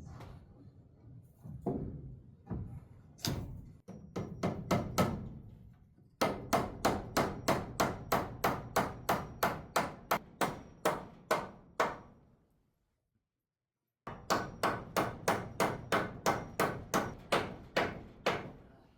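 A hammer driving nails into wood, with quick, even strikes at about three a second in two long runs. A few looser knocks come first, and there is a short pause between the runs.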